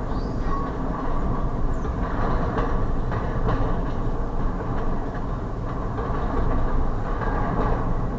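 Double-stack intermodal freight cars rolling steadily past on the rails: a continuous rumble of wheels on track, with a few faint clicks along the way.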